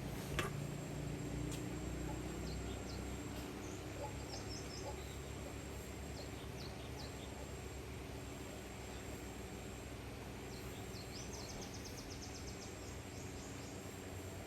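Rural outdoor background: a steady low hum with small birds chirping on and off, a quick trill of chirps near the end, and one sharp click just after the start.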